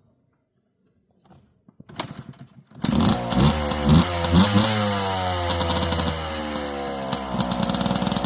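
Yamaha Blaster's single-cylinder two-stroke ATV engine starting about two seconds in after a brief rough attempt, blipped a few times, then its revs winding steadily down toward idle.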